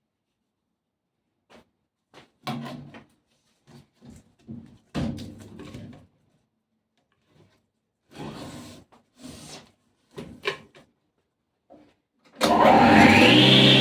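Scattered knocks and clunks of wooden pieces being handled, then near the end an old circular saw's electric motor switches on and spins up with a whine that rises in pitch and settles.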